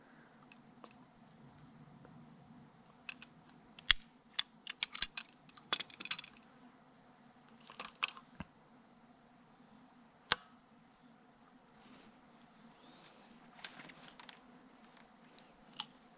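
Sharp small clicks and snaps of a fiber-optic cleaver and fusion splicer being handled, with a cluster of clicks about four to six seconds in and single ones later, over a steady high-pitched insect chorus.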